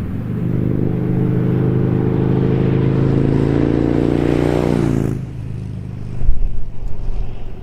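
Harley-Davidson Touring V-twin running through Vance & Hines Monster Oval slip-on mufflers, without True Duals: revved and held up for about five seconds, then dropping back to idle. A few loud low thumps come about a second later.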